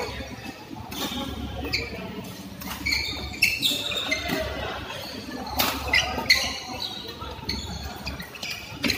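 Badminton rackets striking the shuttlecock during a fast doubles rally: sharp cracks at irregular gaps, the loudest cluster about six seconds in. Sports shoes squeak on the court mat, and everything echoes in a large hall.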